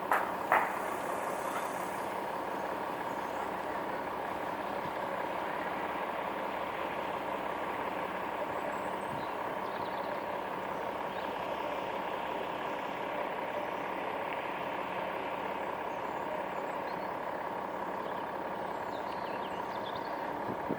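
A vehicle engine idling with a steady, even hum.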